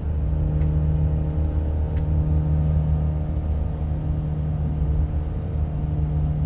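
Electric car driving at a steady speed, heard from inside the cabin: a steady low drone made of a few unchanging tones over road rumble.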